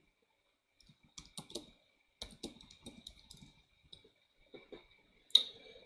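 Typing on a computer keyboard: a run of light keystrokes, followed near the end by one sharper, louder knock.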